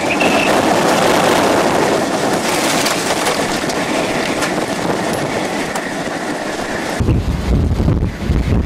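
Tornado wind rushing steadily and loudly around the vehicle. About seven seconds in it turns to heavy low buffeting of wind on the microphone.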